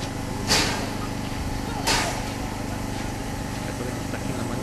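FS 880 steam tank locomotive standing while being watered: a steady mechanical drone with two short, sharp bursts of steam hiss about a second and a half apart.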